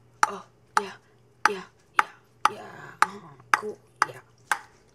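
A utensil tapping on a plate about twice a second, each tap a sharp click with a short ring, with a brief scrape about halfway through.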